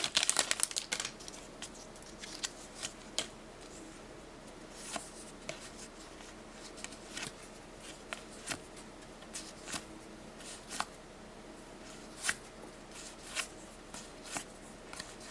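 Pokémon trading cards being flicked through one at a time: soft card flicks about once a second, with crinkling of the foil booster-pack wrapper in the first second.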